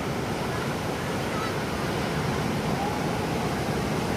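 Ocean surf rushing steadily, a continuous wash of breaking waves.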